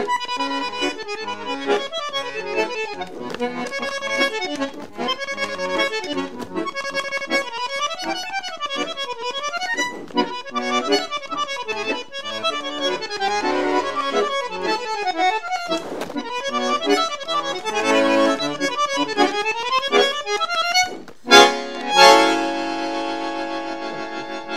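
Solo bandoneon playing a tango, with melodic lines and fast runs, closing with a sharp accent and then one long held full chord near the end.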